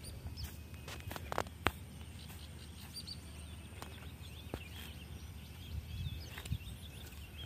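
Birds chirping steadily over a low outdoor rumble, with a few sharp snaps about a second and a half in.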